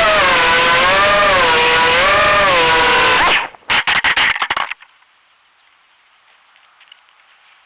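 Small FPV quadcopter's motors whining, the pitch rising and falling with the throttle. About three seconds in, the whine stutters in a few short bursts and cuts off; after that only faint hiss remains.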